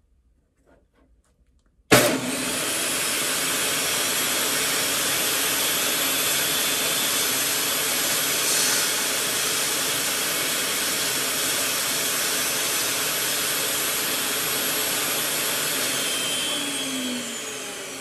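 Benchtop table saw switched on about two seconds in, its motor and blade running at full speed with a steady loud whine. About two seconds before the end it is switched off and the whine falls in pitch as the blade spins down.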